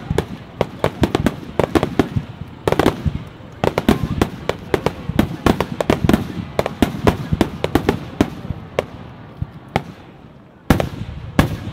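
Aerial fireworks bursting in rapid, overlapping sharp bangs and crackles. They thin out past the middle, then two big bangs come near the end.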